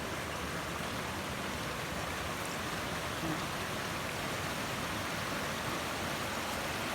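Steady rushing of water from a small waterfall.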